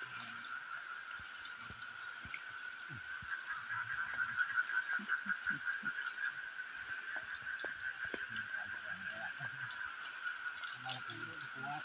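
Night-time forest chorus of insects and frogs: a steady shrill drone in several pitches, with a pulsing trill that grows louder about four seconds in.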